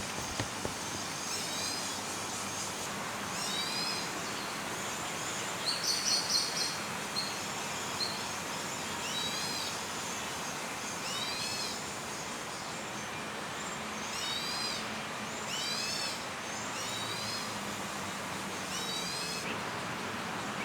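Bird calls in a park woodland: a short high phrase of quick falling notes repeated every one and a half to two seconds, with a brief rapid trill about six seconds in. A steady background hiss runs under the calls.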